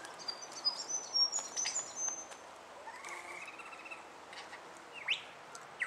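Superb lyrebird calling: a few short high chirps, then a rising run of notes, and near the end two sharp notes that sweep quickly downward in pitch.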